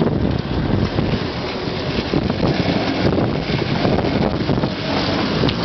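Jeep engine running as it descends a steep, rutted dirt slope, with heavy wind noise on the microphone.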